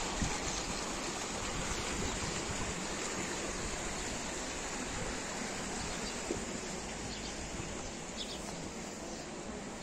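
Steady rush of water running down a shallow concrete channel, slowly fading. There are a couple of faint bird chirps near the end.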